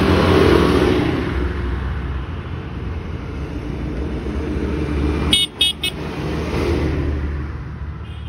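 A New Holland tractor's diesel engine running as it drives past, loudest in the first second or so. Three short horn toots come about five and a half seconds in.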